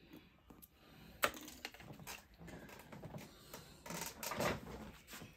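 Irregular clicks, taps and rustling from handling a tool and a leather purse at a sewing table and getting up from it. A sharp click comes about a second in, and a cluster of louder knocks near the end.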